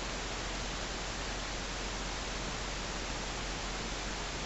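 Steady, even hiss of room tone with no other sound.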